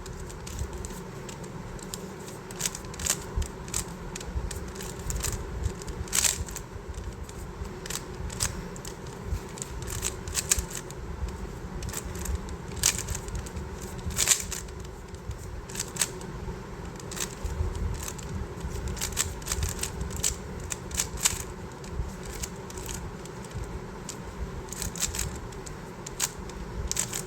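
GAN 12 Maglev magnetic speed cube being turned during a solve: an irregular run of sharp plastic clicks and clacks as the layers are turned and snap into place.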